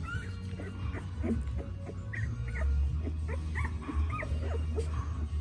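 Newborn puppies squeaking and whimpering, a run of short high squeaks that rise and fall in pitch, over a steady low hum.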